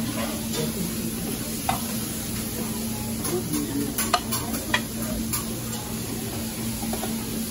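Metal serving tongs clicking against steel food pans and plates: several sharp clicks, mostly in the middle, over a steady low background hum.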